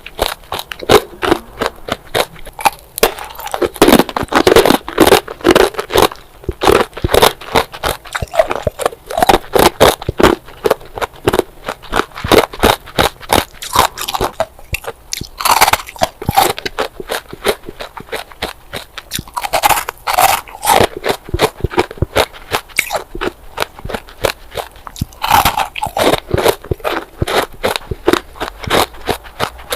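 Ice bars being bitten and chewed: a continuous run of sharp, crisp crunches several times a second, with a few louder bites every five seconds or so.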